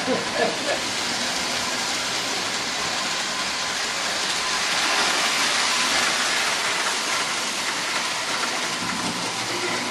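Electric model train running on its track around the Christmas tree: a steady rumbling whir that swells a little about halfway through.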